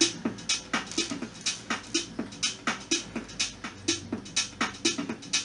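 Electronic music with a quick, steady beat of sharp hits over short low notes.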